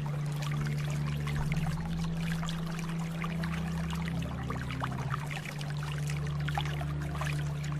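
Water flowing and trickling with many small splashes, over low held tones that step to a new pitch every second or two.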